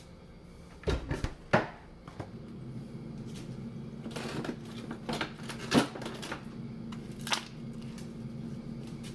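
Ice being added for a smoothie: several hard knocks and clatters of handling and ice going in, over a steady low hum that starts about two seconds in.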